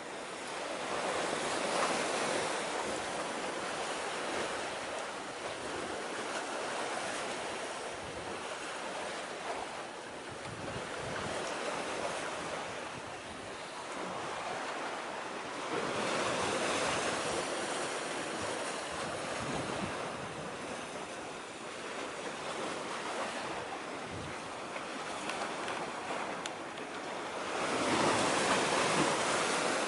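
Sea waves washing against the shore, with wind. The sound swells and eases every several seconds, loudest near the start, around the middle and near the end.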